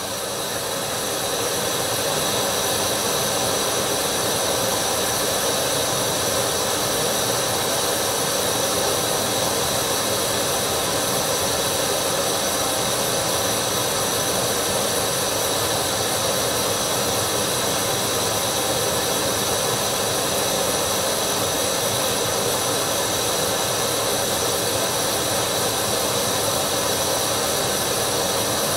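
Single-burner propane camp stove running with a steady hiss, heating a mess tin of water near the boil.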